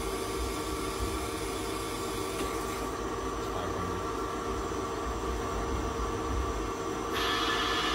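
Doosan Lynx 220LSYA CNC lathe running a driven live tool in its turret: a steady machine hum with several steady tones over a hiss. The sound thins about three seconds in and turns louder and brighter about seven seconds in, as the machine's running changes.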